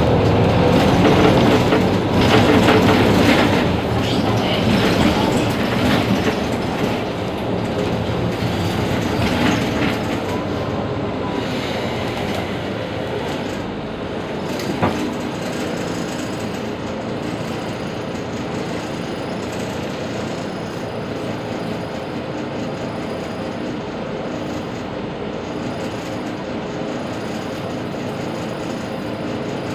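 Mercedes-Benz Citaro G C2 articulated bus idling at a standstill, a steady engine hum that is louder and rougher for roughly the first ten seconds before settling. One sharp knock about fifteen seconds in.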